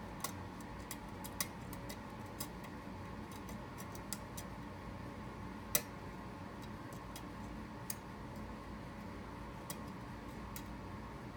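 Lock picking in a pin-tumbler lock cylinder: small irregular metallic clicks and ticks as the pick and tension wrench work the pins, with one sharper click about six seconds in. A faint steady hum runs underneath.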